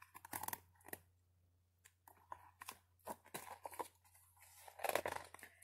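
Picture book pages rustling and the book being handled as it is held up and turned around, in short faint bursts of paper crinkling and small knocks.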